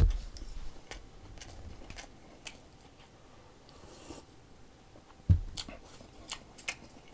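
A person chewing a mouthful of bossam, boiled pork wrapped in lettuce, with scattered small crunchy clicks. There is a dull knock at the start and another about five seconds in.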